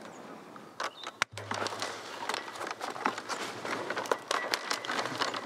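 Rustling and small clicks of a grapevine cane being handled and bent along the trellis wire during winter pruning, with one sharp snap about a second in.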